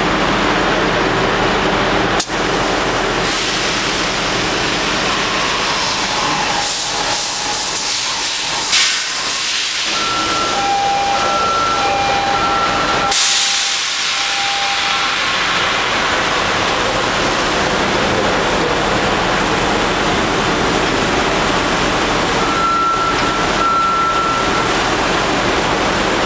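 Loud, steady engine-room machinery noise with a strong hissing rush of air, broken briefly about two seconds in. Short high beeping tones come and go around the middle and again near the end.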